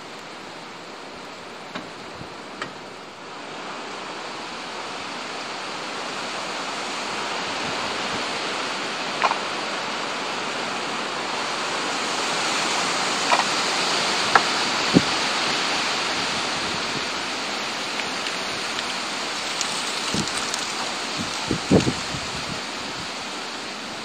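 Steady outdoor rushing noise that swells gradually over the first half and eases a little toward the end, with a few short faint ticks scattered through it.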